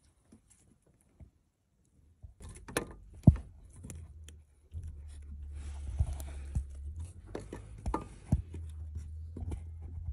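Scattered sharp clicks and knocks of handling and tool contact in an engine bay, one knock much louder than the rest about three seconds in. A steady low hum comes in about halfway through.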